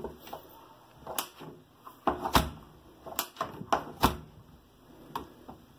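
Lever handle of a freshly repaired mortise door lock being pressed and let go several times, the latch bolt snapping in and out with a series of sharp metallic clicks. The repaired latch is working freely, no longer sticking.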